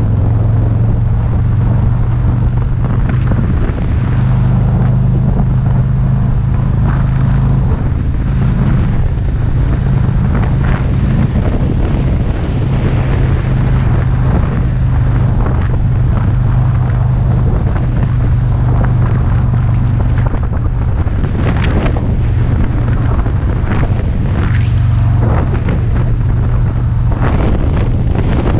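Harley-Davidson Street Glide Special's Milwaukee-Eight 107 V-twin running at a steady highway cruise, with wind buffeting the microphone. The gusts get heavier in the second half.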